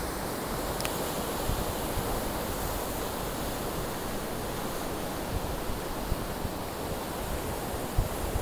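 Rough surf breaking in a steady rush of waves, with wind buffeting the microphone now and then.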